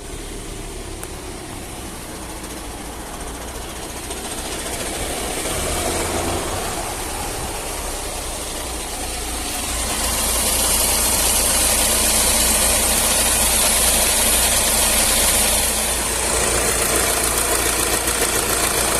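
Volkswagen Multivan T5 180 hp four-cylinder diesel running with the DSG gearbox, carrying an extraneous noise that the owner cannot place as coming from the engine or the gearbox. The sound grows louder about five seconds in and again about ten seconds in, with a hiss rising in the upper range.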